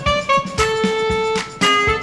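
Background music: a guitar playing a melody over a steady beat.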